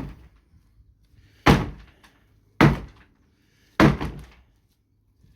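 Three blows on the wooden shed's timber, about a second apart, each a sharp knock that dies away quickly, as the shed is knocked apart.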